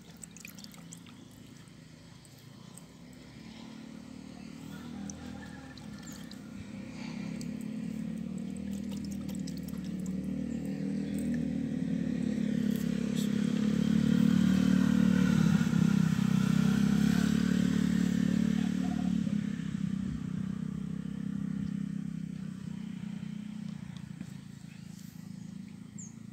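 A motor vehicle's engine passing by. It grows steadily louder for about a dozen seconds, peaks around the middle, then fades away.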